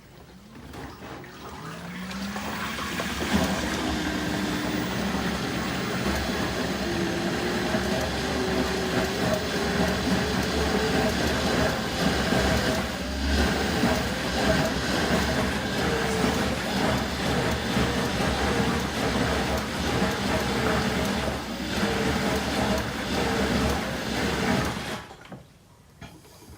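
LG dishwasher drain pump running and pumping the standing water out of the tub, with a rush of water. Its tone climbs steadily over the first several seconds, then holds with small wobbles, and it cuts off sharply near the end: the pump is now clearing the water that the OE drain fault had left standing.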